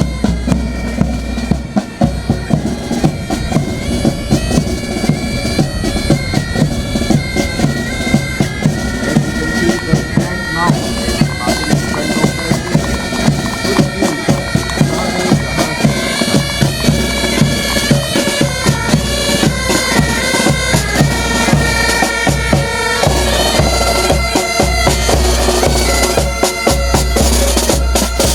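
Bagpipes playing a melody over their steady drone, with drums beating a regular rhythm.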